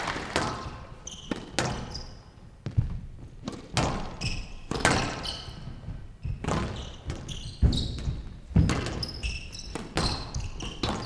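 Squash rally on a glass court: the ball smacks off rackets and walls every half second to a second, with short high squeaks of shoes on the court floor between strikes. Applause dies away over the first second.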